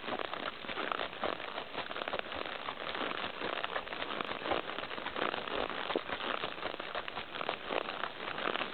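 A horse walking on a dirt-and-gravel forest track: irregular crunching footfalls and crackle, with no clear rhythm.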